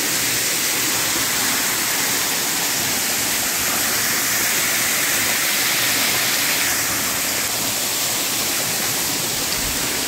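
Waterfall pouring into a rock pool: a steady rushing splash of water. The falls are running high after heavy rain.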